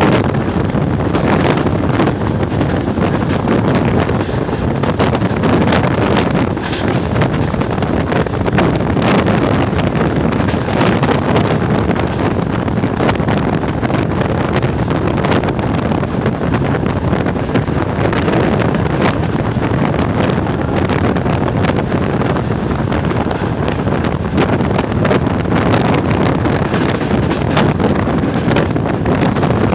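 Passenger train running at speed, heard from outside the coach: wind buffeting the microphone over the steady rumble of the wheels on the track, with frequent short clicks.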